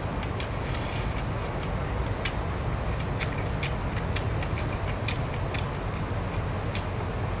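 A man chewing food, with irregular small clicking mouth sounds several times a second over a steady low room hum.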